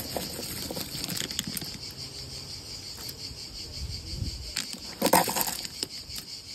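Insects chirring in a steady, high-pitched chorus, with scattered faint clicks and one short, loud rustling noise about five seconds in.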